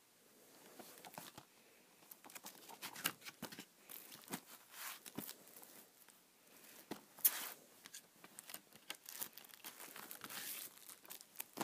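Faint, irregular crinkling and clicking of a plastic Blu-ray case being handled and turned in the hand, the sharpest click about seven seconds in.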